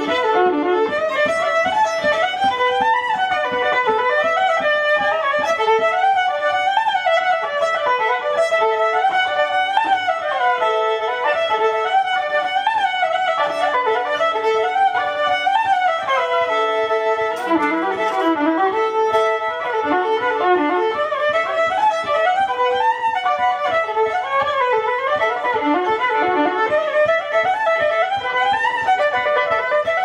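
Electric violin bowed in a fast, flowing melody, with quick runs of notes rising and falling throughout.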